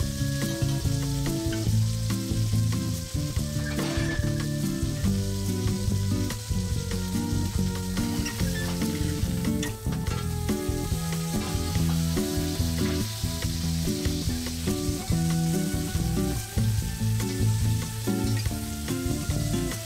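Thick sirloin steak sizzling steadily in foaming butter in a copper frying pan as it is basted, with a spoon scooping the hot fat and scraping against the pan now and then. Background music plays underneath.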